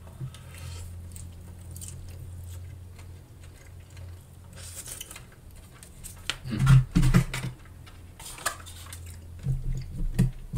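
Close-miked chewing of a mouthful of loaded fries. This is followed by a cluster of sharp clicks and knocks from disposable plastic forks and cardboard packaging as the next forkful is picked up, loudest a little past halfway.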